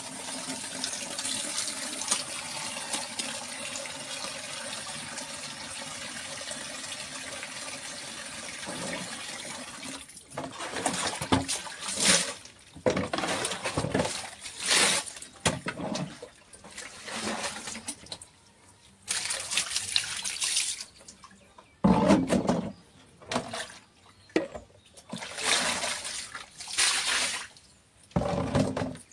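Water running steadily, like a tap, for about ten seconds. Then a string of separate splashes and pours as water is tipped out of plastic tubs onto a concrete floor.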